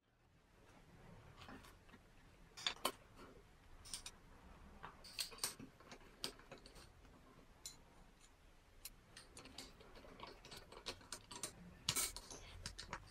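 Faint, irregular clicks and taps of small metal parts and screws being handled and fitted by hand while a 4A-GE throttle body is reassembled. The clicks are louder about three seconds in and near the end.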